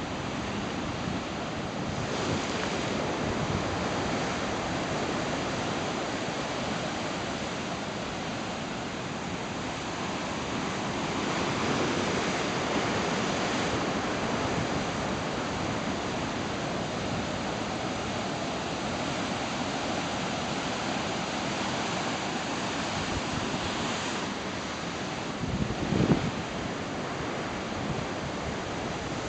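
Ocean surf breaking and washing in, a steady rush of water noise that swells and eases as waves come in. Near the end there is one short, louder low rumble on the microphone.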